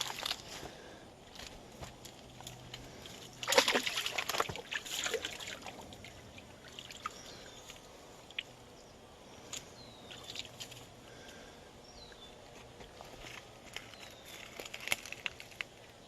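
Sloshing and splashing in shallow creek water, with scattered crackles. The loudest stretch comes about three and a half seconds in. Faint bird chirps come later.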